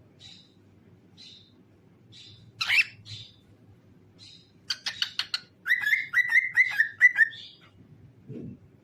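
Cockatiel singing: soft high chirps about once a second, a loud call near three seconds, then a quick run of sharp notes and a string of about six slurred whistled notes.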